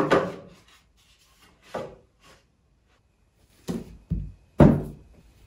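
A string of separate hollow wooden knocks and thuds as unfinished pine crates are set and shifted against each other, then books are put down into the bottom crate. The loudest, deepest thud comes about four and a half seconds in.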